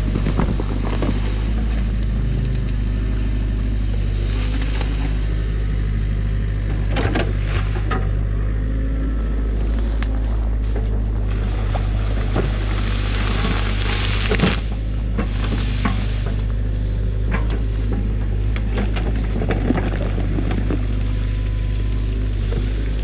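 Mini excavator's diesel engine running steadily at a constant pitch. Crackling rustles of dry reeds and small knocks close by punctuate it, loudest about 14 seconds in.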